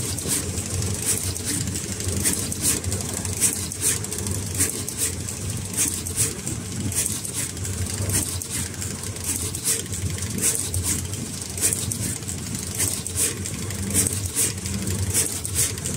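S-530S LED pick-and-place machine running: a steady motor hum with quick, irregular ticks and hisses, several a second, as its multi-nozzle head picks and places LEDs.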